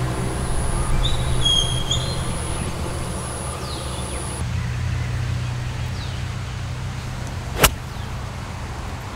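A 9-iron striking a golf ball on a full swing: one sharp, crisp click near the end, over steady outdoor ambience with a few bird chirps about a second in.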